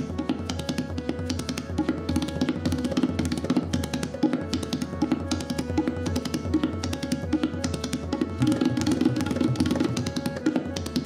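Tabla played fast, a dense run of rapid strokes on both drums, over a harmonium holding steady notes underneath.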